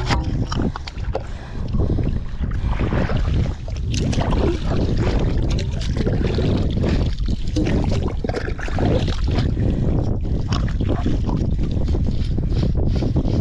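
Water sloshing and splashing, with wind buffeting the microphone in a heavy low rumble; it cuts off suddenly at the end.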